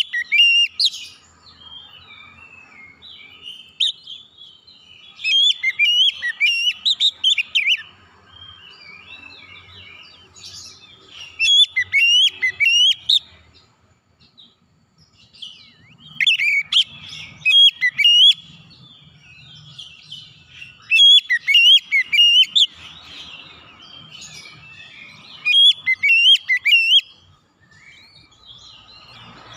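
Oriental magpie-robin singing in bouts of loud, rapidly varied whistles and harsh notes, each bout lasting a second or a few seconds, with short pauses between them.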